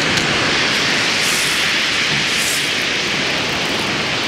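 Steady rushing hiss of a rough sea breaking on a shingle beach, mixed with wind, with two brief brighter hisses about a second apart near the middle.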